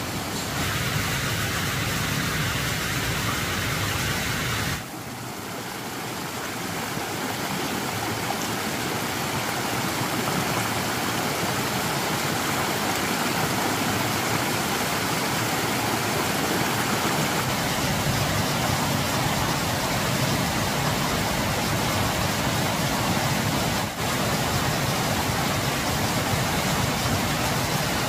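Steady rushing noise of water. About five seconds in it cuts to a lower level and slowly builds back up, with a brief dip near the end.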